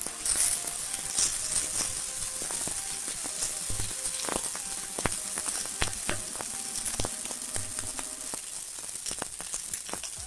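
Dosa batter sizzling on a hot tawa as a ladle spreads it in circles, with frequent light clicks and scrapes of the ladle against the pan.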